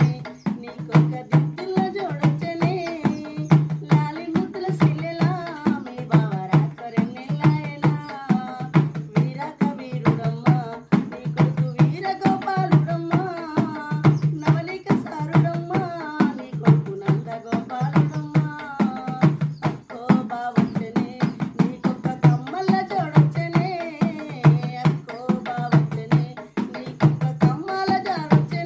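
Telugu folk song: music with a steady drum beat, about one stroke a second, under a wavering melody line.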